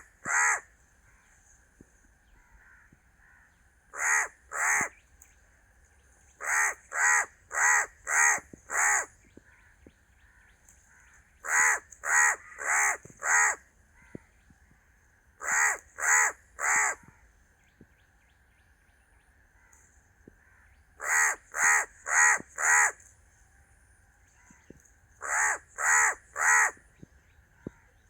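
A crow cawing in bouts of two to five harsh caws, with pauses of a few seconds between the bouts.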